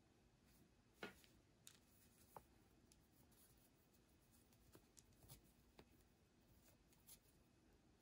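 Near silence: quiet room tone with a few faint soft ticks and rustles of yarn being handled while strands are tied into knots.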